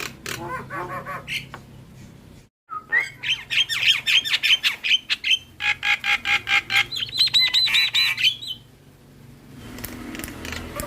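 Javan myna (jalak kebo) calling in a fast run of repeated harsh notes, about five a second, loudest from about three seconds in to past eight seconds. Softer calling comes before a brief break about two and a half seconds in.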